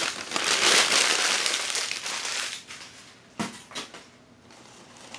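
Crumpled newspaper packing crinkling and rustling as it is pulled out of a styrofoam-lined shipping box, loud for about two and a half seconds, then dying down. A single sharp click about three and a half seconds in.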